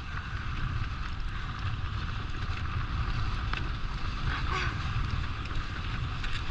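Steady rush of wind on the microphone from moving fast behind racing sled dogs, with the even hiss of gliding over snow.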